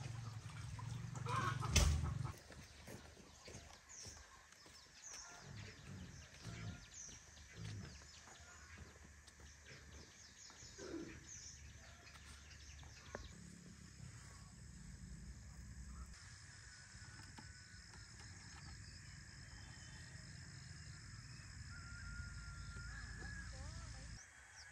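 Chickens clucking and calling, with a loud knock about two seconds in and a thin steady high tone setting in about halfway through.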